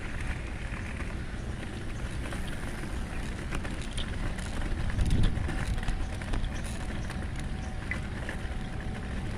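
Outdoor background noise: a steady low rumble that swells about five seconds in, with a few faint clicks.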